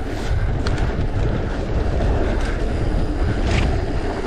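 Mountain bike riding a loose, rocky trail: a heavy rumble of wind buffeting the camera microphone over the crunch of tyres on gravel, with a few sharp rattles and knocks from the bike.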